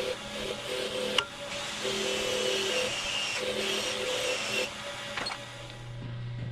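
A small handheld power tool running in a series of short bursts with a whine, typical of running bolts in, with a sharp knock about a second in; the bursts stop a little past five seconds.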